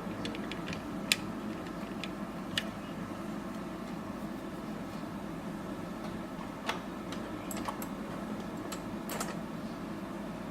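Steady fan-like whir of bench equipment with a few scattered sharp clicks and taps of small metal tools on a circuit board.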